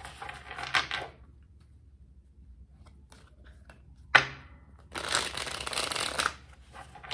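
A deck of tarot cards being shuffled by hand, a rustling that comes in bursts: about a second at the start and again for over a second from about five seconds in. About four seconds in there is a single sharp snap of the cards, the loudest sound.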